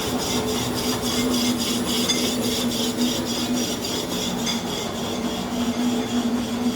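A machine running with a steady hum and a quick, even rubbing rhythm of about five strokes a second.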